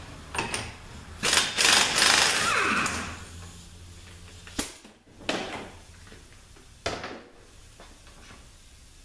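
Impact wrench on a 30 mm twelve-point socket hammering loose the nut at the rear of a Mercedes 722.6 automatic transmission: a loud burst of about two seconds that winds down in pitch as the tool stops. A few sharp metal clinks follow as the socket and parts are handled.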